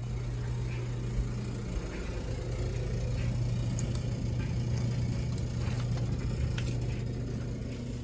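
A steady low mechanical hum, like a motor or idling engine, with a few faint clicks.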